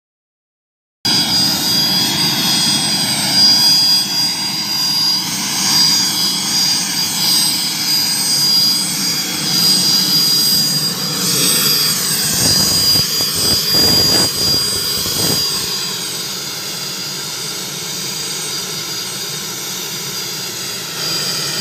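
An Indian Air Force HAL Chetak helicopter's turboshaft engine running on the ground: a steady high turbine whine with the rush of air. It begins abruptly after a second of silence and drops a little in level about two-thirds of the way through.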